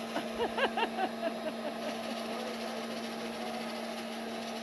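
Vacuum cleaner running with a steady motor hum. In the first second and a half, a quick run of short, high rising-and-falling vocal sounds rides over it.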